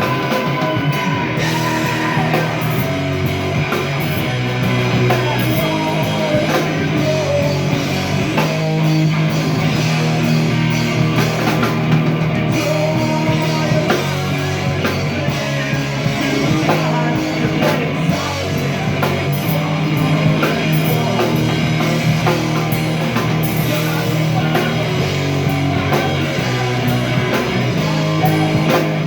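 Live rock band playing loudly with distorted electric guitars, bass and drum kit, with a voice singing over it at times.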